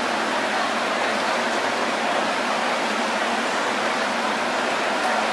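Steady hubbub of a baseball stadium crowd, an even wash of noise with no single sound standing out.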